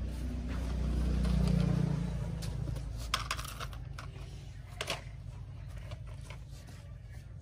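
Plastic toy trucks handled and pushed in sand, giving sharp clicks and scrapes about three and five seconds in. Under them is a low rumble that swells over the first two seconds and then fades.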